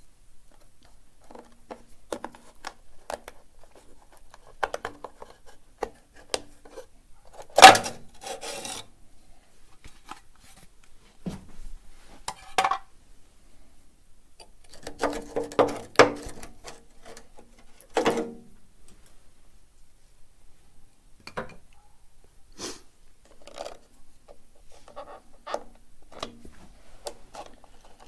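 Scattered clicks, knocks and rubbing of hand work on a car trailer's rear light housings as the light covers are opened. There is a sharp knock about eight seconds in and a cluster of knocks around sixteen seconds in.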